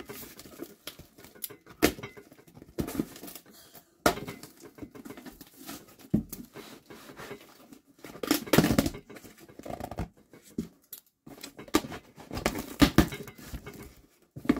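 Packaging being handled and opened: irregular rustling, crinkling and tearing with a few sharp knocks, louder in two stretches in the second half, as new printed band T-shirts are unpacked.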